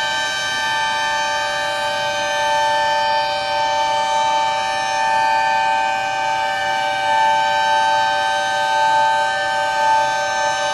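Civil defense sirens sounding a steady, held tone with several pitches together, with fainter sirens rising and falling beneath it. They mark the 10 November moment of silence.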